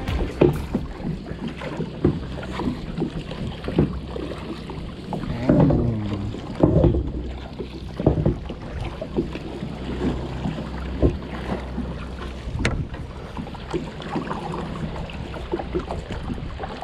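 A small plastic sit-on-top kayak being paddled on the sea: irregular splashes and knocks from the paddle and the hull, with a steady rumble of wind on the microphone.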